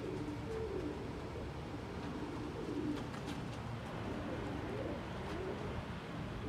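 Domestic pigeons cooing, short calls repeating again and again over a steady low background hum.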